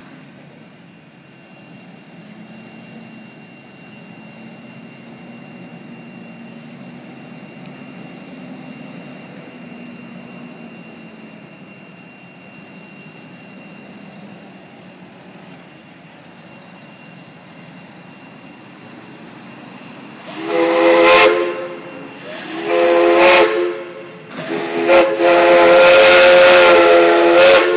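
A steam locomotive's whistle blows three times, two short blasts and then a long one, each a chord of several steady tones. Before the whistle there are about twenty seconds of low, steady background hiss.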